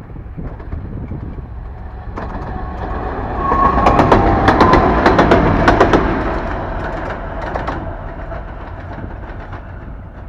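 Two-section 2M62U diesel locomotive running light past, its two-stroke V12 diesels droning and its wheels clattering over the rail joints. The sound grows to its loudest about four to six seconds in as the locomotive goes by, then fades as it moves away.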